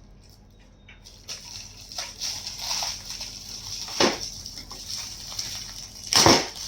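Rustling and handling of a gift's wrapping and box as it is unpacked, with two louder crinkling scrapes about four and six seconds in, the second the loudest.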